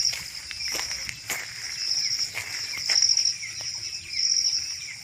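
Insects calling in a high, pulsing chorus that swells and fades about once a second, with a few short clicks in the first half.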